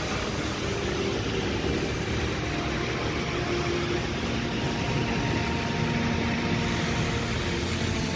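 Heavy downpour hissing steadily, with vehicles driving through water on the flooded road.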